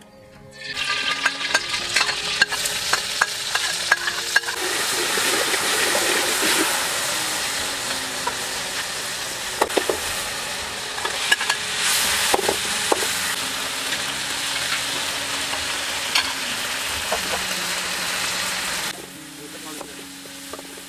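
Food sizzling loudly as it fries in hot oil in a steel wok over a wood fire, with a metal ladle scraping and clinking against the pan as it is stirred. The sizzle starts about a second in as ingredients go into the hot wok, and drops off sharply near the end.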